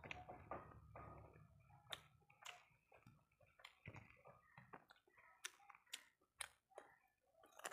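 Faint eating sounds of a person chewing rice and salad eaten by hand: scattered soft clicks and smacks of the mouth, coming more often in the second half.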